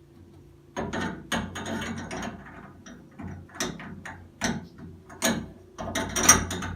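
Metal clicking and rattling in short, irregular bursts as a socket wrench is worked on the stem of an old Price Pfister two-handle shower valve, loosening it. The loudest burst comes near the end.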